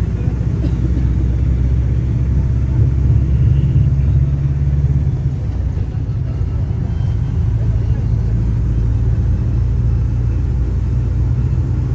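Diesel engine of a Volare V9L microbus on an Agrale chassis running under way, heard from inside the bus. The engine note swells for the first few seconds, drops about halfway through, then settles into a steady, lower drone.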